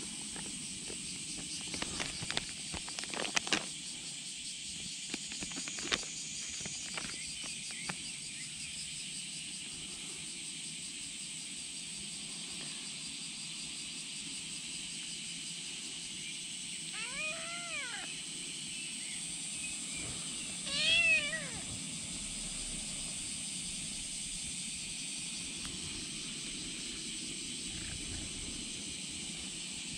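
A ginger kitten meowing twice: a short call about 17 seconds in and a louder one about 21 seconds in. Light scuffs and rustles of fabric come in the first several seconds.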